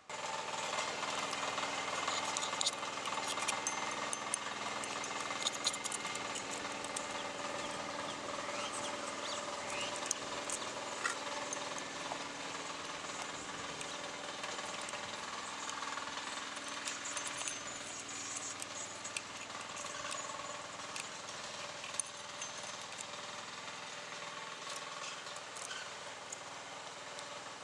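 A small engine running steadily, with scattered sharp clicks and scrapes over it.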